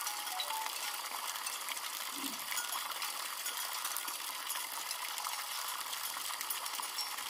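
Steady high-pitched hiss with a faint fine crackle: outdoor ambience.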